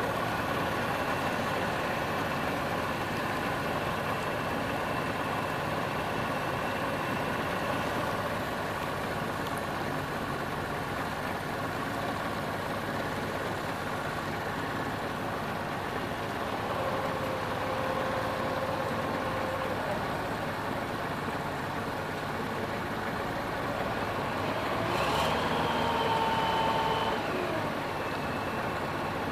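Boat engine running steadily under way. Near the end there is a click and then a steady tone lasting about two seconds, the loudest moment.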